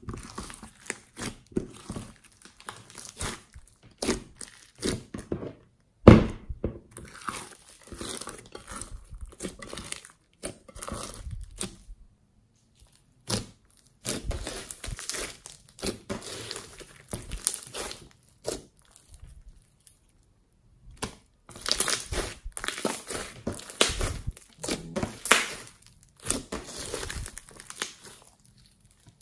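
Glossy slime mixed with foam beads being squeezed and kneaded by hand: irregular sticky crackling, squishing and crunching, with one loud pop about six seconds in and two short pauses.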